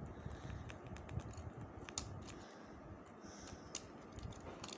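Faint, irregular small clicks and taps as fingers press a thin foil second hand onto the spindle of a clock movement, the clearest click about two seconds in.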